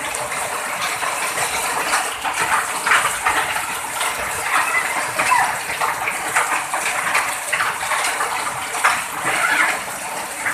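Running water, a steady rush with irregular splashy flecks.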